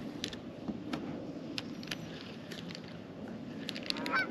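Faint scattered clicks and light taps, a few more together about four seconds in, with a brief squeaky chirp at the same moment.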